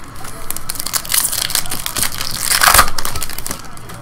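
Foil wrapper of a trading card pack crinkling and tearing as it is ripped open, loudest just before the cards come out.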